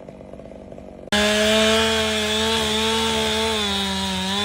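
Chainsaw running at high revs: a steady, buzzing engine note that starts abruptly about a second in, with only a faint low hum before it.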